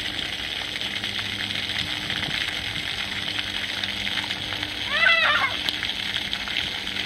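Steady hiss and patter of garden water spray falling on a lawn, with a child's short high-pitched cry about five seconds in.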